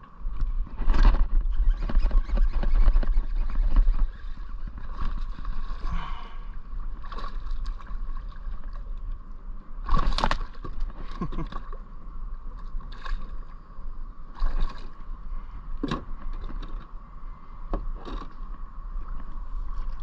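A hooked bass thrashing and splashing at the water's surface beside a kayak, with one big splash as it jumps about ten seconds in. Knocks and rumbling from handling in the kayak come through loudly in the first few seconds, and scattered sharp clicks follow.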